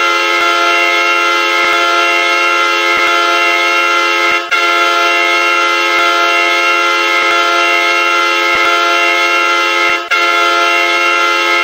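Hockey goal horn sounding an air-horn chord of several pitches held together in long blasts. The blasts break briefly about four and a half seconds in and again about ten seconds in.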